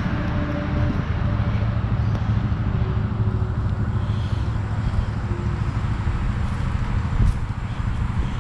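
ATV (quad bike) engine running steadily at idle.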